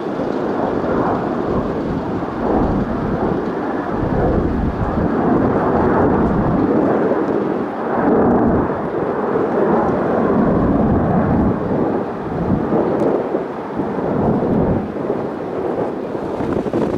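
Jet airliner's engines roaring loudly for over fifteen seconds, a rough, surging rumble that swells at the start and falls away near the end as the aircraft passes close by.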